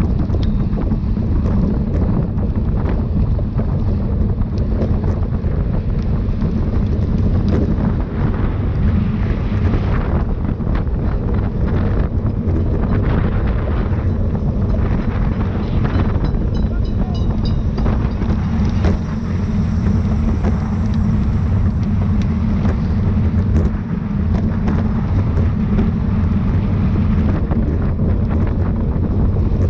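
Loud, steady wind noise buffeting the microphone of a camera carried on a road bicycle at racing speed.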